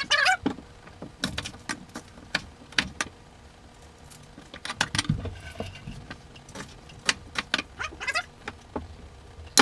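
Kitchen knife chopping on a cutting board: a run of irregular sharp knocks and clicks, some close together, some with short gaps.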